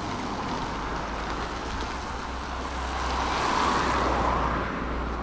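A vehicle passing on the street: a rushing noise that swells about three seconds in and fades again, over a low steady rumble.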